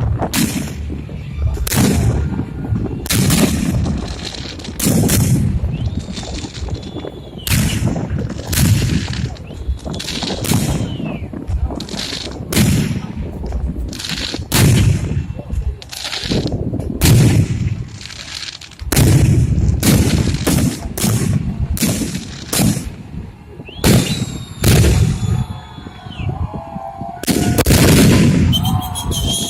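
Fireworks salute: aerial shells bursting in a long, irregular series of loud bangs, roughly one a second and sometimes in quick clusters, each trailed by a low rumbling echo.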